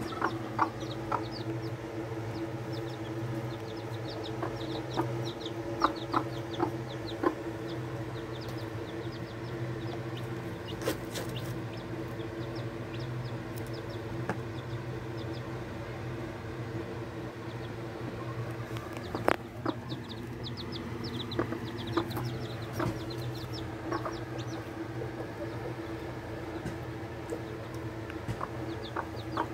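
Mother hen clucking to her chicks while the chicks peep in clusters of short, high cheeps, over a steady low hum.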